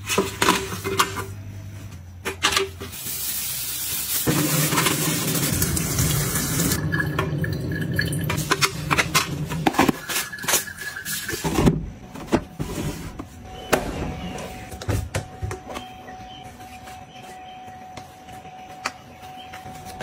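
A tap runs for several seconds, rinsing a stainless-steel espresso-machine drip tray, followed by light metallic clinks and clatter as the wet tray is handled and wiped. Later come quieter clicks and rustling as a plastic lint filter box is pulled out of a tumble dryer.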